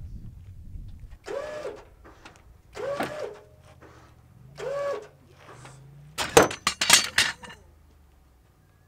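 Electric winch on an off-road Hummer bumped in three short runs, each a brief motor whine that rises and falls in pitch. About six seconds in comes a quick series of loud metal clanks.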